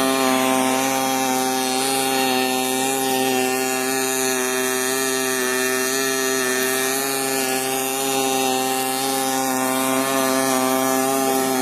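Automatic welding with a magnetic welding carriage: a steady, unchanging buzzing hum with a hiss over it, from the welding arc and the carriage's drive as it travels along the seam.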